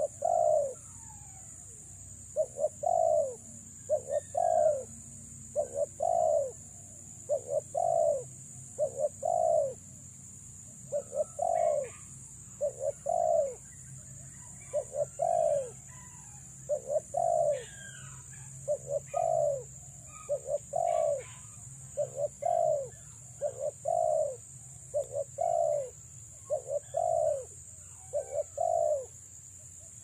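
Spotted dove cooing: a long run of low, rolling coos, about one a second and often in twos or threes, with faint chirps of small birds in between.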